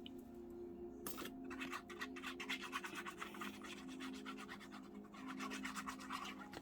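Paper being rubbed with quick, scratchy strokes, many a second for about three seconds, after a single click. It ends in softer scuffling.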